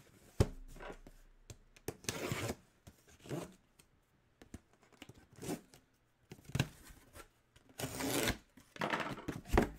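Cardboard shipping box being handled and opened: a sharp knock about half a second in, then several short bursts of tearing and scraping as tape and cardboard flaps are pulled open.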